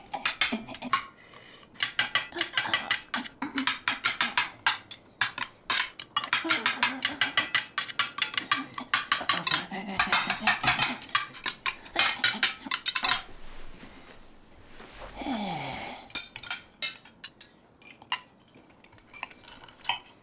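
Cutlery scraping and clinking against china plates during a meal, in quick clusters of clicks. There is a short falling sound about fifteen seconds in.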